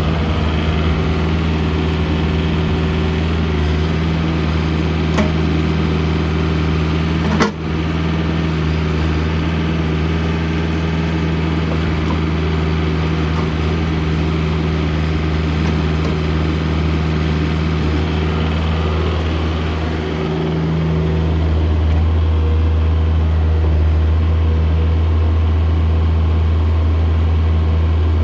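Schaeff-Terex HR20 mini excavator's diesel engine running steadily while the operator works the boom and bucket, with a sharp click about seven seconds in. The engine note gets louder from about twenty seconds in and stays up.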